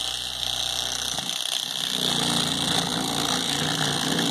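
Battery-powered electric fillet knife running, its reciprocating blade cutting into a catfish, a steady motor whine over a low buzz. The buzz gets louder and rougher about two seconds in as the blade works into the fish.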